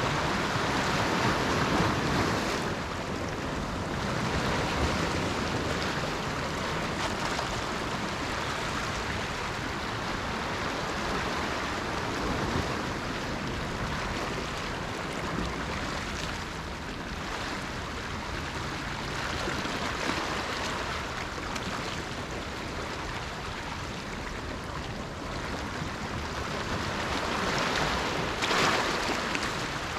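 Small sea waves washing on a shore, a steady rushing wash that swells louder near the start and again shortly before the end.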